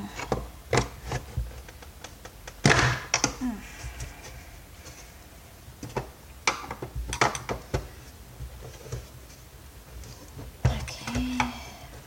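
Irregular clicks and knocks of a screwdriver and plastic vacuum-cleaner parts being handled and worked at, with one loud knock about three seconds in.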